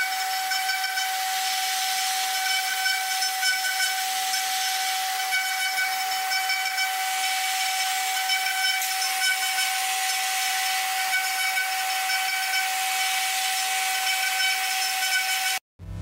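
High-speed CNC engraving spindle milling a brass workpiece: a steady high whine over a constant hiss. It cuts off suddenly near the end.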